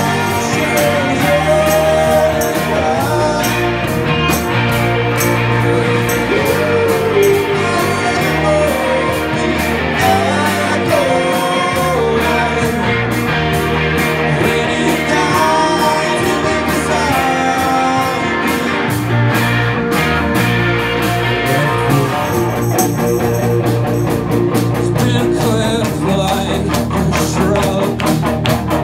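Live rock band playing loudly: electric guitar, bass and drum kit, with a voice singing over them. The drums and cymbals come through more sharply in the last several seconds.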